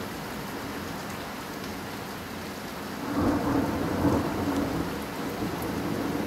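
Steady heavy rain, with a rumble of thunder that rises about halfway through, peaks, and rolls on more softly to the end.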